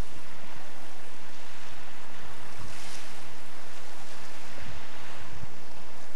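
Waves and water splashing close to the microphone, with wind buffeting it and a steady low hum underneath; the splashing swells up twice, about three seconds in and again near five seconds.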